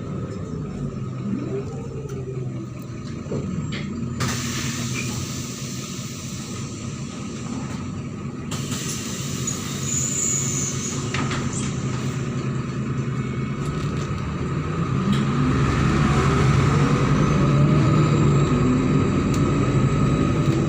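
MAZ-103 city bus's diesel engine heard from inside the bus, running at low revs, with a hiss that starts about four seconds in and cuts off sharply about four seconds later. From about two-thirds of the way through, the engine's pitch rises and it gets louder as the bus accelerates.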